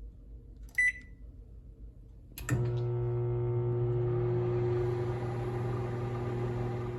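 Sharp microwave oven being started: one short keypad beep, then a click about two and a half seconds in as it switches on, and a steady electric hum as it runs, heating a bowl of water.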